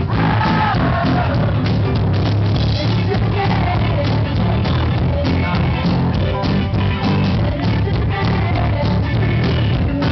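Live indie rock band playing loudly: electric guitar, keyboard and drums, with a voice singing near the start.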